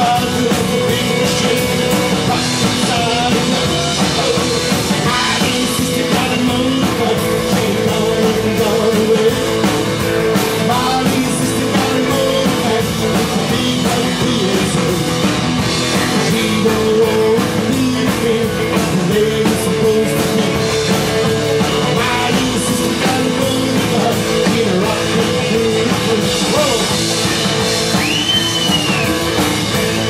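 Rockabilly band playing live: electric guitars and a drum kit, with a man singing lead into a microphone.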